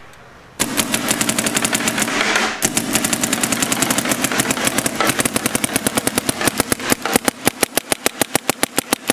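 Planet Eclipse LV1 electronic paintball marker firing on compressed air in a rapid stream of sharp pops, about a dozen a second at first and spacing out to around seven or eight a second near the end.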